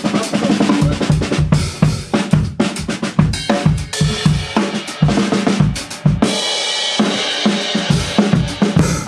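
A drum kit played fast and hard: dense bass drum and snare hits with fills, and a stretch of cymbal ringing about six seconds in.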